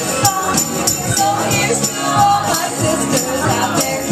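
Music played loud over a DJ's PA system, with a singing voice over a steady beat.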